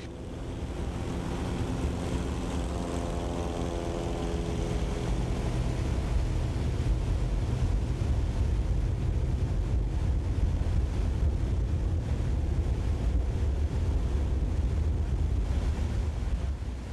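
Light single-engine propeller airplane in flight: a steady, low engine and propeller drone with air rushing around it. A few faint held tones over the drone fade away in the first few seconds.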